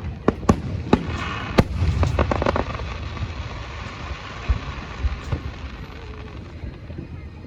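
Aerial fireworks going off: several sharp bangs in the first couple of seconds, then a crackling spray of small pops, then scattered dull booms over a low rumble.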